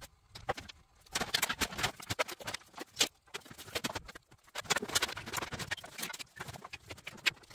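Bamboo firewood crackling in a camping wood stove: quiet, irregular clicks and pops.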